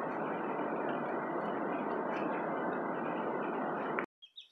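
Steady cabin noise of a jet airliner in flight: an even rush of engine and airflow noise heard from a window seat over the wing. It cuts off abruptly near the end.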